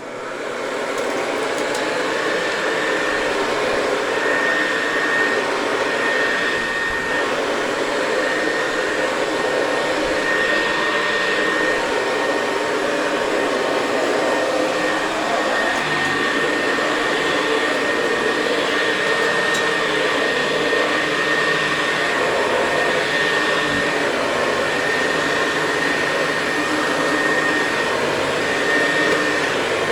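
Hoover Convertible 704 upright vacuum cleaner switched on and spinning up within about a second, then running steadily as it vacuums carpet. A thin, high whistle comes and goes over the motor noise.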